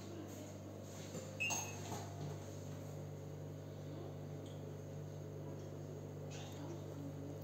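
Faint scraping of a plastic spatula against a ceramic bowl as thick, cold white chocolate ganache is stirred, with a light knock about one and a half seconds in, over a steady low hum.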